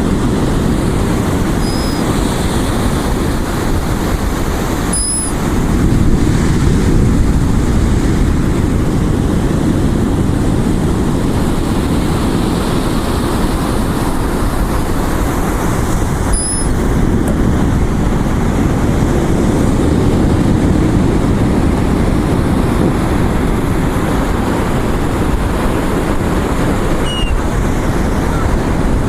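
Steady low rumble of wind and ocean surf on the beach, with a few brief high chirps.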